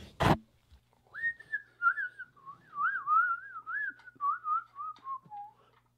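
A person whistling a short, carefree tune: one wavering note line that wobbles up and down and slides lower toward the end. A brief knock comes just before the whistling starts.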